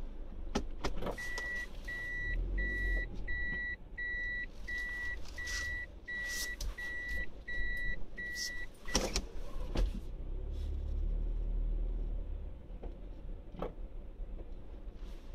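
Electronic warning beeper sounding a run of about eleven short, even beeps at one pitch, a little more than one a second, stopping about nine seconds in. Under it runs the low rumble of a car driving slowly, with a few sharp knocks.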